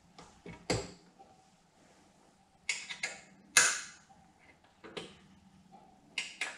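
Short, sharp metallic clicks and clanks from a hand wrench working the bolts of a saddlebag mounting bracket on a motorcycle's rear fender strut, coming in scattered groups. The loudest clank is about three and a half seconds in.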